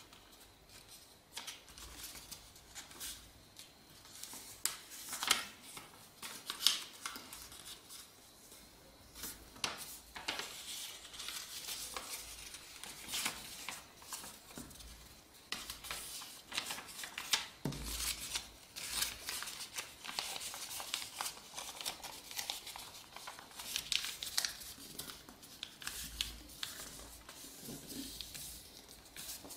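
A sheet of A4 paper being folded by hand: irregular rustling and sliding, with short sharp swipes as fingers press the creases flat.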